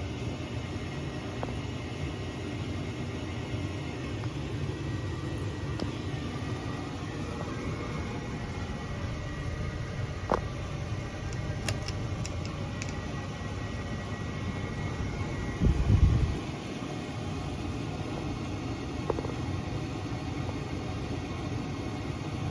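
1997 Hunter Original five-blade ceiling fan running on high speed: a steady rush of air from the blades over a low hum. A brief low thump comes about sixteen seconds in.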